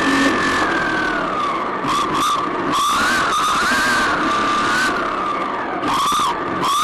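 RC car's motor whining at speed, its pitch falling and rising again and again as the throttle is worked through corners and straights. Several short hissy bursts break in over it, tyres scrubbing on the tarmac.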